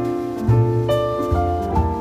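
Background music: a piano-like keyboard melody over sustained bass notes, with new notes every half second or so.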